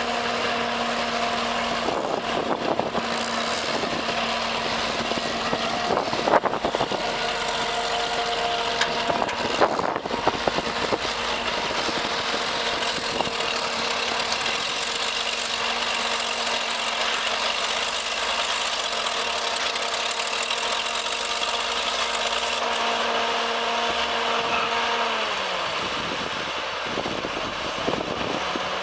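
A heavy machine's engine running steadily with a held tone, with a few clanks about six and ten seconds in. Near the end the tone drops in pitch as the engine slows down.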